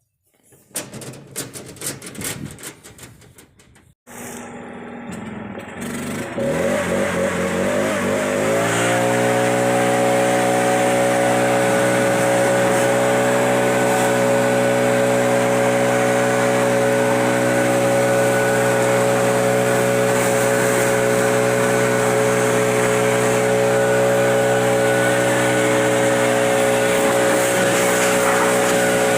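Clicks and rattles at first, then a Stihl BR800 backpack leaf blower's engine comes up, revs up over about three seconds, and runs steadily at full throttle.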